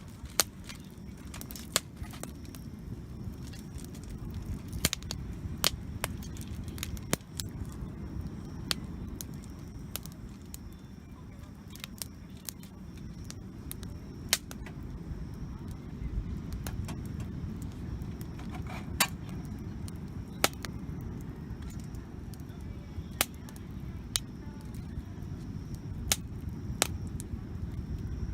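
Wood campfire crackling, with irregular sharp pops every second or two over a steady low rumble.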